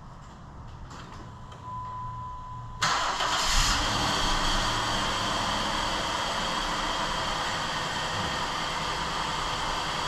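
Dodge Caravan's 3.3-litre V6 starting on fresh spark plugs after a cranking no-start caused by fuel-fouled plugs. A short steady tone sounds, then the engine catches suddenly about three seconds in and settles into a steady idle without throttle.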